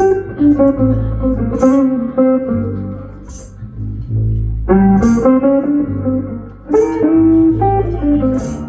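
Blues band playing an instrumental passage: guitar lines over a steady bass, with a cymbal splash about every second and a half.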